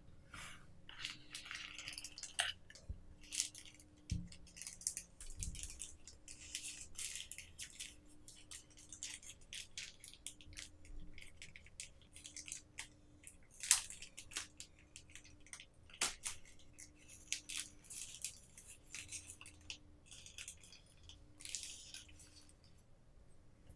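Paper wrapping and cardboard packaging rustling and crinkling in the hands as a smartwatch is unwrapped, with scattered sharp taps and clicks of the box and the watch; the loudest is a single sharp tap a little past halfway.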